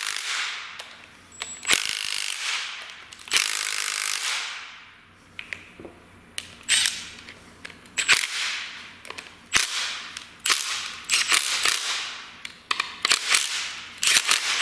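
Ratchet wrench tightening bolts on a differential carrier: a run of short, sharp ratcheting strokes, each trailing off quickly, about a dozen of them, coming faster in the second half.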